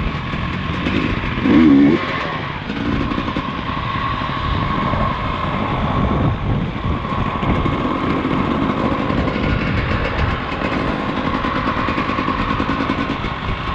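Enduro motorcycle engine running under load, with a louder rev about one and a half seconds in.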